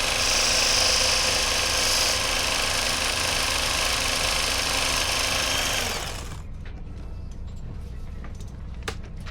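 Powered knife-sharpening grinder running, with a harsher hiss for the first two seconds. It is switched off and dies away about six seconds in, leaving a low hum and a few light clicks.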